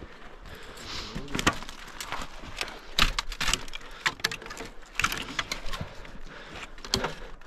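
Irregular metallic clicks, clinks and knocks of climbing hardware being handled, the sharpest about three seconds in and again near the end.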